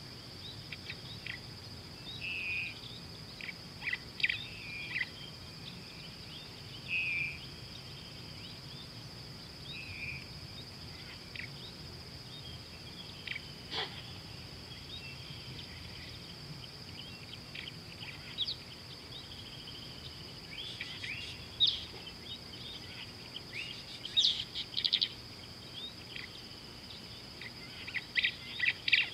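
Wild birds chirping and calling in short, scattered phrases, busier near the end, over a steady high-pitched drone.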